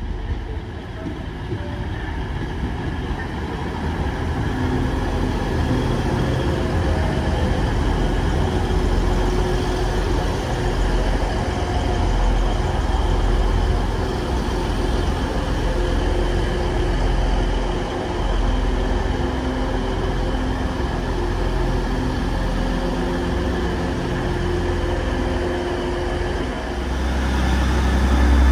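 TransPennine Express Class 185 diesel multiple unit arriving and running past along the platform, its underfloor diesel engines giving a steady drone. The sound grows louder over the first several seconds and swells again near the end.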